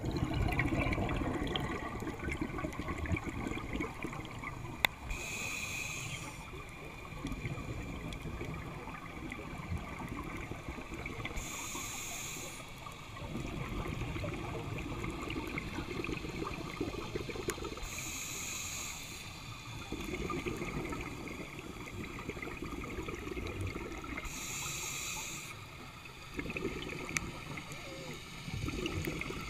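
Scuba diver breathing through a regulator underwater: a short hissing inhalation about every six seconds, four in all, each followed by several seconds of low bubbling as the exhaled air escapes.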